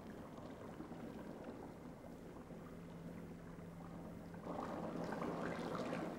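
Faint, low, steady hum of submarine machinery with one held tone. About four and a half seconds in, a louder rushing noise swells in.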